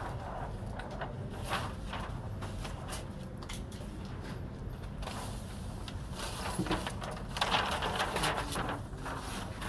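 Faint scattered clicks and rustling over a steady low hum, with a louder stretch of rustling about three-quarters of the way through. These are the sounds of handling at the shooting bench before a string of fire.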